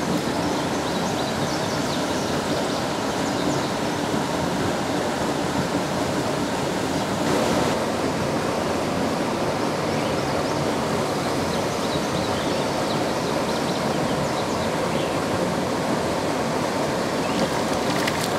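Steady rush of water pouring through a spillway. Near the end, a hooked warmouth splashes at the surface.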